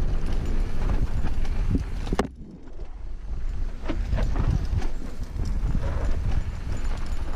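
Mountain bike riding fast down a rough dirt trail, heard from the rider's helmet: a steady low rumble of tyres and wind with irregular rattles and knocks from the bike. A sharp knock about two seconds in is followed by a brief quieter moment before the rattling picks up again.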